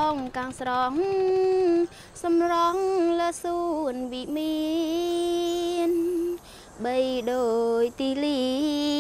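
A woman singing a slow melody, holding long notes with small wavering turns, in phrases broken by short pauses.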